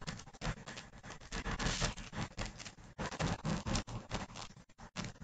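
Faint, irregular clicks of a computer mouse over low background hiss.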